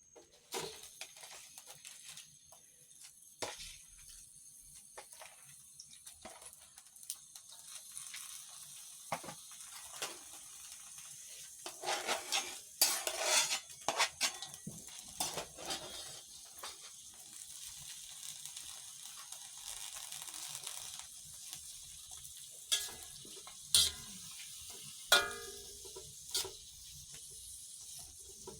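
Cooking pot on the stove with a steady faint sizzling hiss. Scattered clinks and scrapes of a utensil against the pot, with a louder spell of stirring about twelve seconds in.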